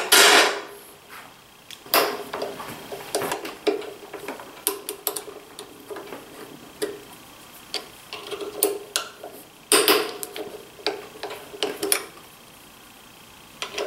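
Hand tools clicking and tapping against the metal gearbox of a DeWalt 735 planer as its socket head screws are loosened: a string of irregular ticks and clinks, with louder knocks at the very start, about two seconds in and about ten seconds in.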